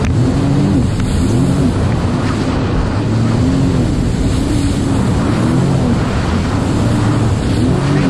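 Sea-Doo jet ski engine running at speed, its pitch rising and falling about once a second over choppy water, with wind on the microphone and water rushing past the hull.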